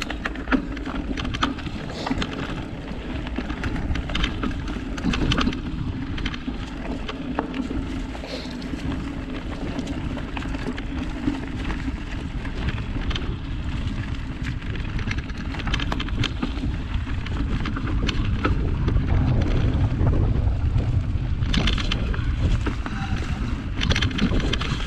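Mountain bike rolling over a rough trail: the hum and rumble of its large knobby 29+ tyres, with frequent small rattles and knocks from the rigid frame, and wind on the microphone. The low rumble grows louder in the second half.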